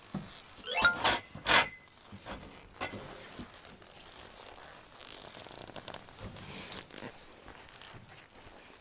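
Tent zipper being pulled, two quick rasping zips about a second in, followed by softer rustling and handling of the tent fabric.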